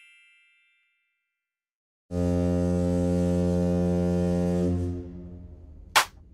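Low ship's horn sounding one long steady blast of nearly three seconds, starting about two seconds in and then fading. A short sharp knock follows near the end.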